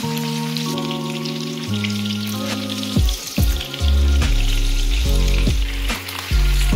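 Chicken thighs sizzling and crackling in hot oil and melting butter in a frying pan. Background music runs under it, with heavy bass notes coming in about three seconds in.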